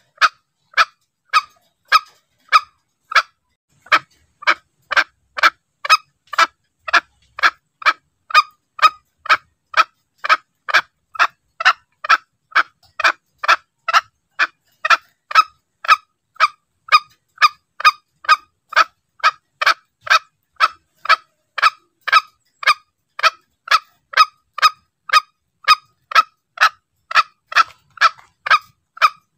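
Green junglefowl calls played as a hunting lure: short, sharp notes repeated evenly about twice a second in a steady loop.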